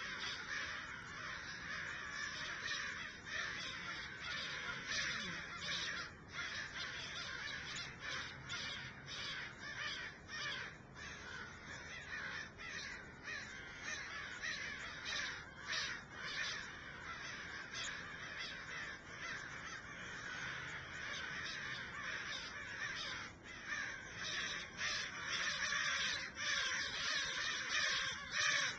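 A large flock of crows cawing without pause, many calls overlapping into a continuous din.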